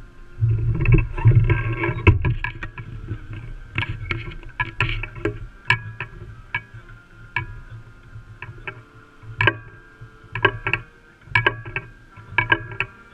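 Rumbling wind and handling noise on a camera mic mounted on marching tenor drums, with the band's held brass notes in the background and scattered sharp clicks of sticks and hardware.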